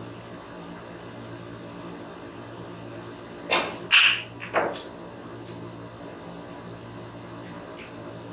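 Snooker break-off: a sharp click of the cue striking the cue ball, then about half a second later the loudest clack as the cue ball hits the pack of reds. A few more ball-on-ball and cushion clicks follow over the next second and a half, and two faint ones come near the end, over a steady low hum.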